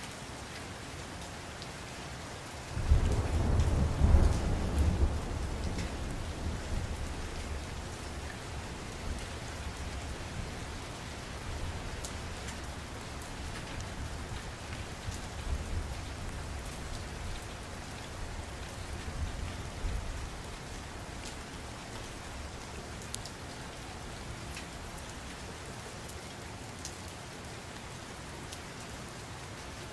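A steady even hiss, with a sudden deep rumble about three seconds in that rolls on and fades over several seconds. Fainter rumbles swell again a few times later.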